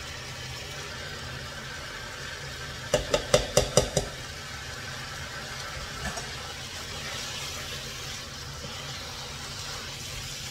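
Pot of tomato-and-meat sauce simmering with a steady low sizzle; about three seconds in, a quick run of about six sharp knocks against the pot as the rice is tipped in, then stirring of the rice into the sauce.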